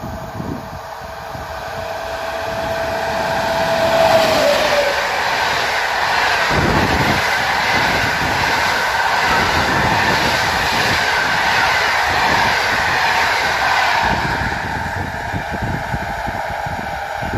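An electric passenger train passing at speed: a steady tone from the train drops in pitch as it goes by about four seconds in, at the loudest point. After that a long freight train of tarpaulin-covered wagons rumbles and rattles past close by, easing off near the end.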